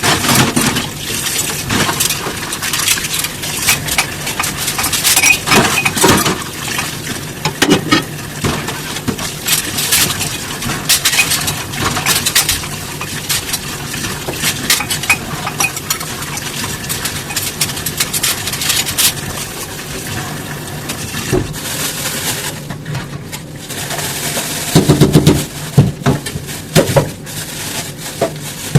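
Dishes being washed by hand: frequent clinks and scrapes of dishware against each other, over a steady wash of noise, with a few heavier knocks about 25 seconds in.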